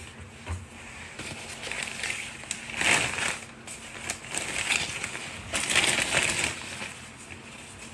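Paper crinkling and rustling as it is handled, in irregular bursts, loudest about three seconds in and again around six seconds in.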